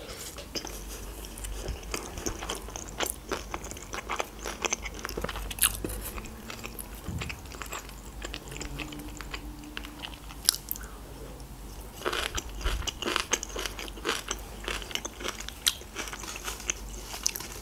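A person chewing a mouthful of sushi roll, with many short, sharp mouth clicks.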